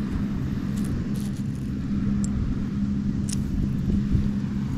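A steady, low, engine-like drone, with a few light clicks of shells being handled in a pile.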